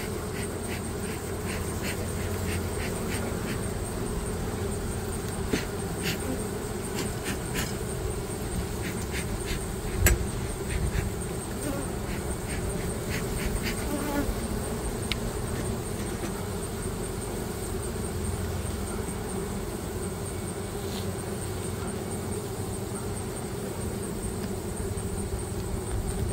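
Honey bees buzzing over an open hive: a steady, dense hum. Light clicks come in the first several seconds, and a single knock about ten seconds in.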